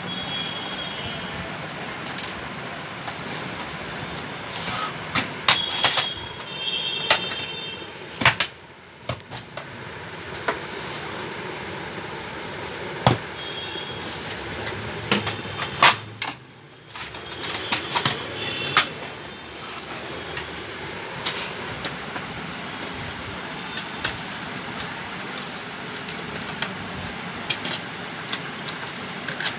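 Plastic parts of an Epson L130 inkjet printer clicking, knocking and rattling as it is taken apart by hand, with now and then a short high squeak, over steady background noise.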